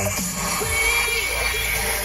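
Music playing through the car's speakers from the Android head unit's music player, with a steady deep bass and long held notes.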